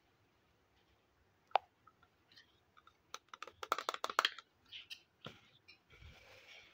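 Small plastic toy pieces clicking and knocking as they are handled: a single sharp click about one and a half seconds in, then a quick cluster of clicks and rattles as a toy plastic mortar and pestle is worked in the hands, and a soft scuffing near the end as it is set down.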